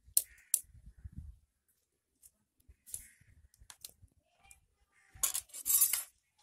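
Wood fire burning in a clay stove under a clay cooking pot: scattered sharp crackles and clicks, with a louder rustling crackle about five seconds in.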